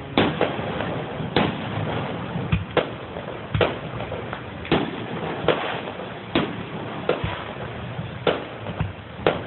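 Fireworks going off in quick succession: a run of sharp bangs, roughly one a second and irregularly spaced, over a steady background noise.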